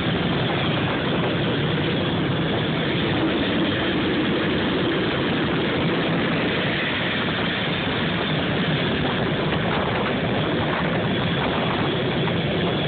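Steady, loud jet turbine noise at close range from a Northrop F-5 fighter being readied on the ramp, with its ground start cart beside it.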